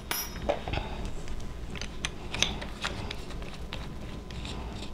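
Irregular clicks and small knocks as a spade bit is taken from a plastic bit case and fitted into a cordless drill's keyless chuck, which is twisted tight with ratcheting clicks.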